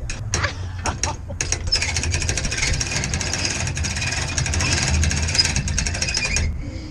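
Trailer winch pulling a car up onto a trailer: a few separate clicks, then a long run of rapid, even ratcheting clicks over a low rumble that stops shortly before the end.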